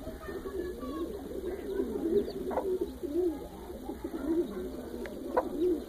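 Domestic birds calling softly: a steady run of low, wavering coo-like calls, with a few faint, short, higher peeps.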